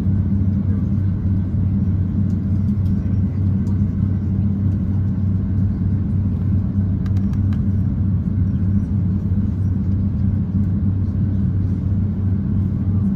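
Steady low rumble inside the cabin of an Airbus A350-900 taxiing on the ground, its engines at idle thrust, with a constant low hum running through it.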